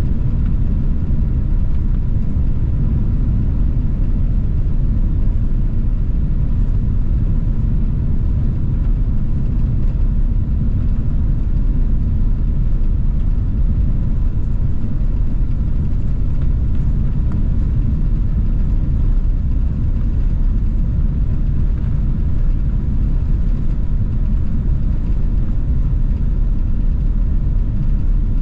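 Steady low rumble of engine and airflow noise inside an Airbus A380 cabin during takeoff, with a faint steady tone above it.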